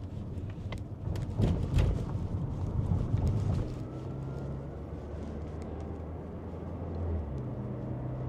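Car driving, engine and road noise heard from inside the cabin: a rough low rumble with a few knocks for the first few seconds, then a steadier low hum whose pitch shifts a little near the end.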